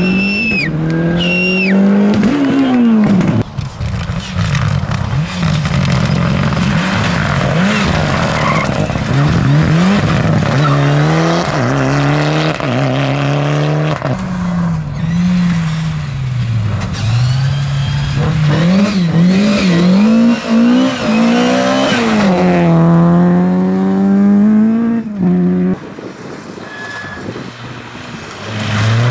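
Rally car engine revving hard, its pitch climbing and dropping again and again through gear changes and lifts, with a brief high squeal near the start. The engine sound falls away for a couple of seconds near the end, then rises again.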